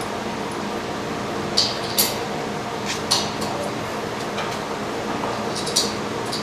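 Small metal hand tools clinking a handful of times as they are handled and tried on a fastener, over a steady low hum.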